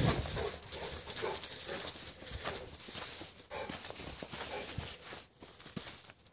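A bullmastiff moving over dry leaves and grass: irregular soft footfalls, scuffs and rustles, with some dog snuffling. It dies down near the end as the dog stops and stands.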